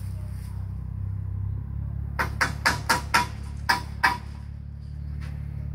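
A quick run of about eight sharp clicks and knocks over some two seconds, starting about two seconds in, over a steady low rumble.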